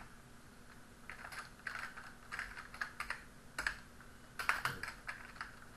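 Typing on a computer keyboard: scattered key clicks in a few short clusters.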